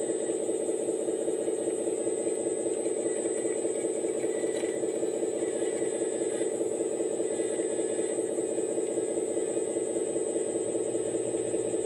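RC Komatsu PC240 scale excavator's hydraulic pump and motor running steadily, a continuous hum with a thin high whine over it, and faint scraping and rattling from the working machine in the middle.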